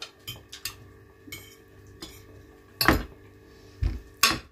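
Metal forks picking at a roast duck and clinking against the plate, with scattered small clicks and scrapes. There are a few louder clinks and a dull knock in the last second and a half.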